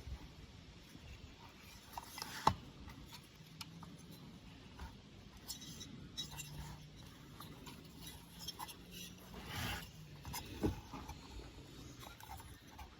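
Small clicks and light knocks of chainsaw engine parts being handled and fitted by hand, with a sharper knock about two and a half seconds in and another near eleven seconds.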